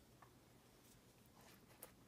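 Near silence: quiet room tone, with a few faint clicks and one slightly louder click near the end.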